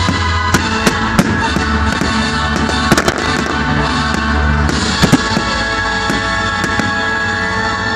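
Aerial fireworks shells bursting in a series of sharp bangs, about one or two a second, with a dense cluster about three seconds in and another just after five, over loud steady music.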